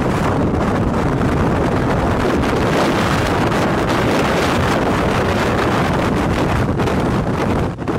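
Strong wind blowing against the microphone: a loud, steady rushing noise that dips briefly near the end.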